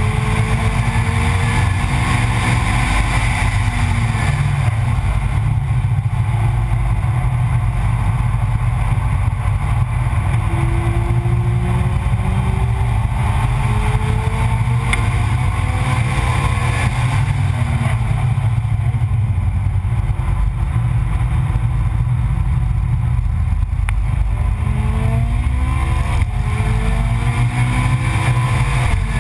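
Onboard sound of a car at speed on a race track: heavy wind rumble over the microphone, with a fainter engine note underneath that climbs and drops back several times as it accelerates through the gears and slows for corners.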